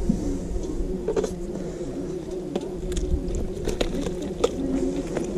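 Scattered small clicks and scrapes as a knife and hands cut and pull meat from a spit-roasted whole lamb over a metal tray, against a steady low rumble.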